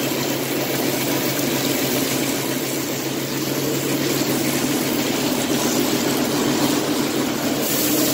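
Air compressor running steadily with a low hum, under the hiss of water spraying from a DIY air-powered pressure washer gun.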